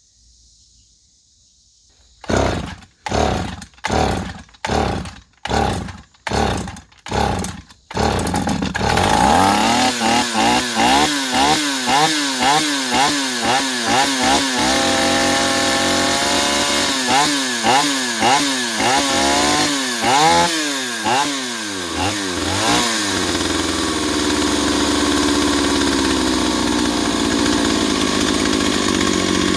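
Stihl 028 two-stroke chainsaw pull-started with about seven quick pulls on the starter rope, catching about eight seconds in. It then revs up and down over and over before settling into a steady run. It still runs poorly after a carburetor kit, which the owner puts down to a leaking fuel line.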